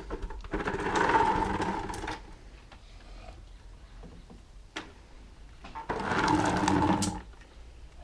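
Small electric pump motor of a portable gas hot-water shower buzzing in two short runs of about a second and a half each, one near the start and one about six seconds in.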